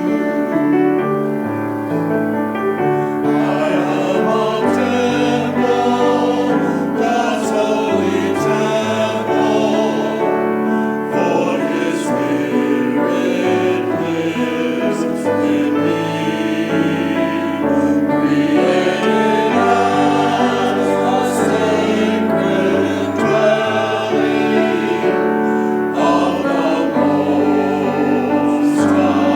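Church choir singing with sustained chordal instrumental accompaniment.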